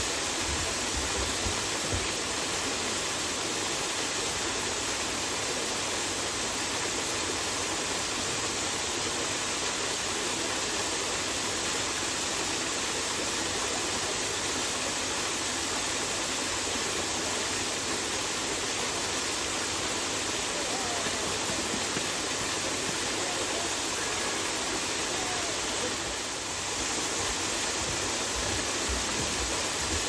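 Waterfall splashing into a pool: a steady, even rush of falling water.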